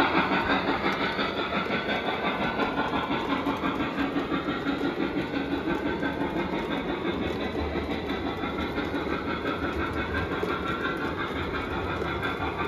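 O scale model coal train rolling past on three-rail track: a steady rolling rumble with an even, fast rhythm of wheels clicking over the rail joints as the loaded hopper cars go by.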